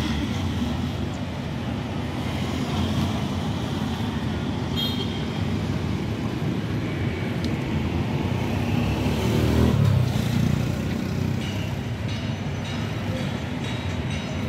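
Street traffic running steadily, with a vehicle passing louder about ten seconds in.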